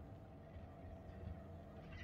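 Faint, steady low rumble of a Volvo B7RLE bus's diesel engine running, heard inside the passenger cabin.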